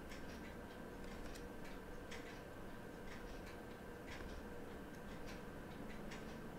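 Faint, irregular small clicks of metal tweezers touching a tiny watch wheel and the movement's plates while a replacement chronograph minute wheel is set in place, over a faint steady hum.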